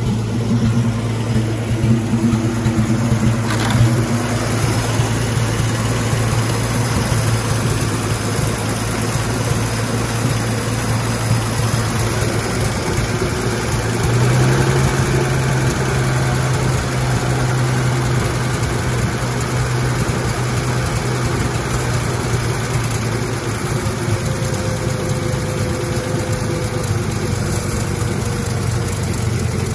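1956 Dodge H6 truck's old flathead engine idling steadily on its freshly rebuilt carburetor. About halfway through the throttle is opened a little by hand at the carburetor linkage and the engine speeds up slightly, settling back to idle some seconds later.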